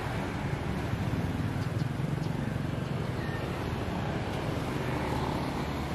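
Roadside traffic noise: a steady rumble of passing motorbikes and cars, with faint voices.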